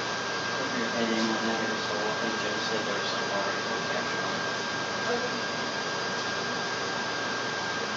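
Steady hiss of background noise with a thin, steady high whine above it.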